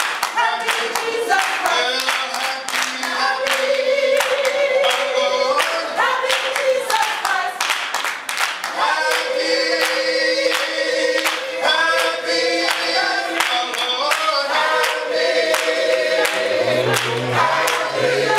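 A choir singing together with steady hand clapping.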